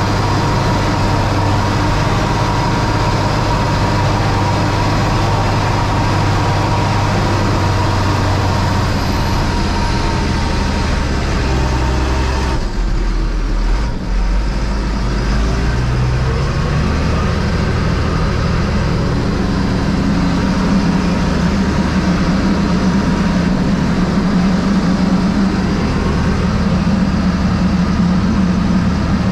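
Fendt 926 Vario tractor's 6.9-litre six-cylinder diesel running steadily, heard from inside the cab, with a thin steady whine over the drone. About halfway through the sound briefly thins out and dips, then the engine settles on a higher note.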